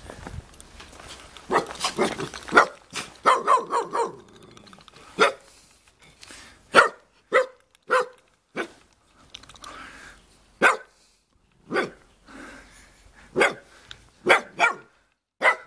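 Black-and-tan dog barking over and over in short, sharp barks. There is a quick run of barks in the first few seconds, then single barks every half second to second and a half.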